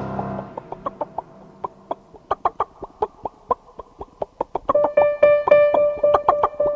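A run of short chicken clucks. About five seconds in, light piano music comes in alongside them.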